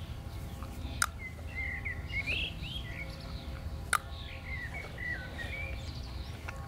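Songbirds chirping and warbling throughout, with two sharp single clicks about three seconds apart, the second just as the dog's nose touches the hand: a dog-training clicker marking the hand touch.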